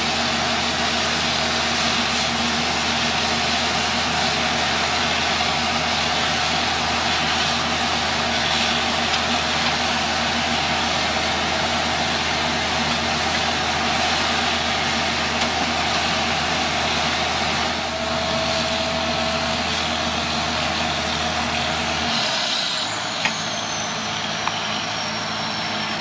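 Case IH Axial-Flow combine running at close range, a steady loud machine drone with a high whine over it. About 22 seconds in, the deep hum drops away and the whine falls in pitch as part of the machinery winds down.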